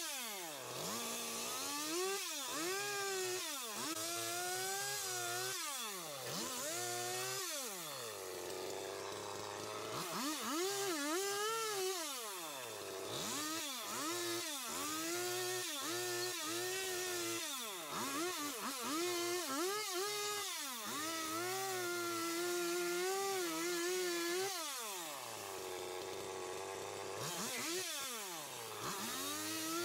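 Stihl two-stroke chainsaw carving into a wood log, revved up and eased back again and again, about ten times. It holds at high speed through a cut for a few seconds at a time and drops back between cuts.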